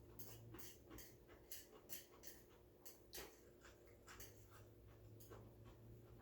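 Faint, irregular soft clicks and smacks of a person eating noodles, chewing and mouth sounds, about two or three a second.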